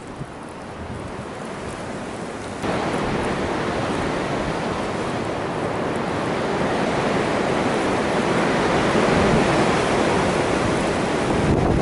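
Strong gusty wind rushing over the microphone, a steady roar that jumps louder about two and a half seconds in and keeps building.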